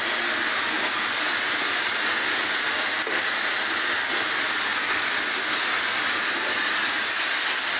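Steady, even rushing hiss of running commercial kitchen equipment.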